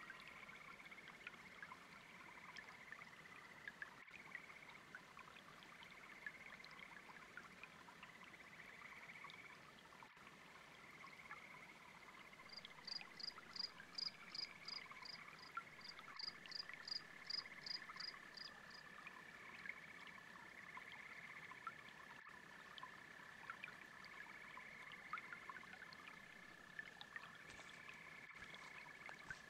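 Faint chorus of frogs and toads trilling, with insects chirping over a light trickle of brook water. From about twelve to nineteen seconds in, one caller gives a quick run of high, evenly spaced peeps, about three a second.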